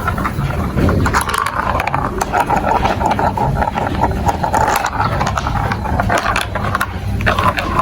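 Marbles rolling and clattering through a plastic building-block marble run: a continuous rattle of many small clicks over a low rolling rumble.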